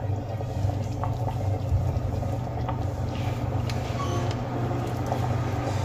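Pot of green pea and potato curry boiling on the stove, with small scattered pops over a steady low hum.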